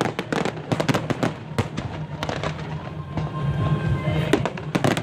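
Aerial fireworks going off in quick succession: many sharp cracks and bangs, crackling throughout, with music playing underneath.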